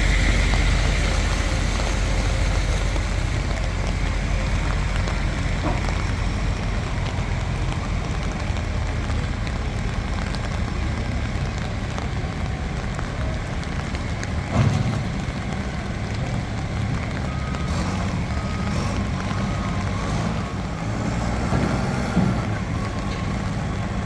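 Engine of a Nippon Sharyo DH408-95M pile driver running steadily, with a single knock about fifteen seconds in and a lighter one near the end.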